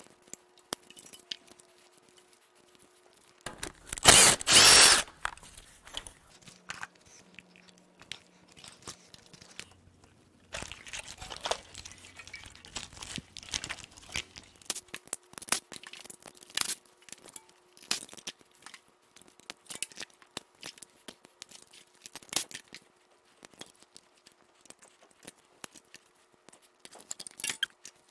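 Plastic electrical connectors and clips of an engine wiring harness being unclipped, pried with a screwdriver and pulled loose by hand: scattered clicks, snaps and rustling. About four seconds in, two loud, harsh noises a second apart stand out.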